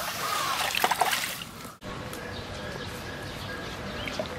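Puddle water sloshing and splashing as it is scooped and pushed into waves, cutting off abruptly a little under two seconds in; after that only a quieter steady outdoor background.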